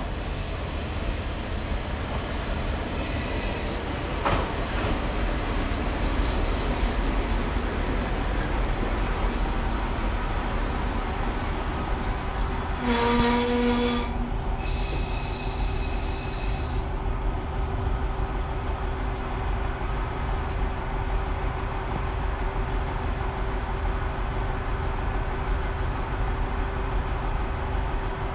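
Train running on the rails, heard through a GoPro HERO9's built-in microphone as a steady rumble. A brief pitched tone sounds about halfway through.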